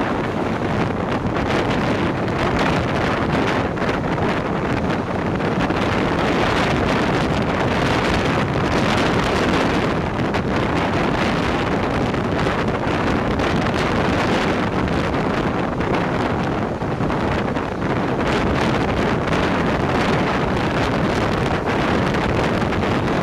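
Wind buffeting the microphone over the steady rumble of a moving train.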